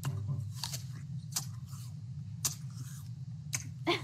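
Apple being bitten and chewed close to the microphone: about five sharp, crisp crunches over a steady low hum.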